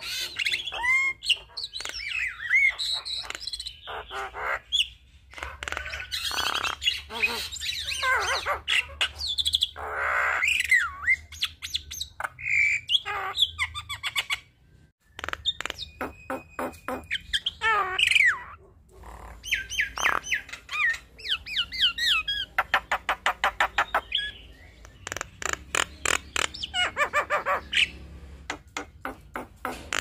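Javan myna (jalak kebo) singing a long, varied song: whistled notes that slide up and down, mixed with fast runs of dry clicking chatter, with a brief break about halfway through.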